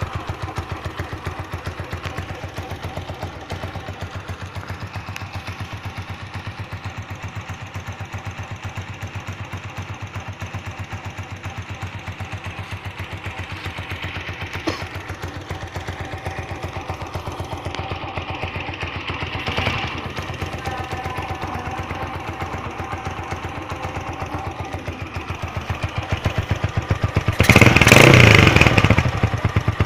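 Motoposh Typhoon 150 motorcycle engine, fitted with aftermarket cams and CDI, idling with an even beat. It is blipped briefly a little past halfway, then revved up loudly near the end.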